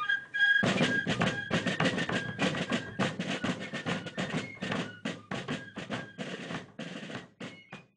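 Fife and drum corps music: a last fife note, then snare drums playing rapid strokes and rolls with bass drum beats, starting about half a second in and fading out near the end.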